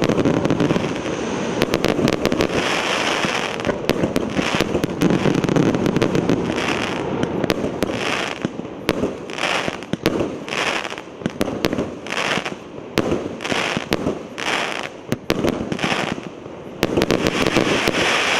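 100-shot, 1.2-inch firework cake (R7108 'Prometey') firing shot after shot, with launch bangs and aerial bursts. The shots run together into a dense crackle at first. In the middle they come more evenly, a little under two a second, and they thicken again near the end.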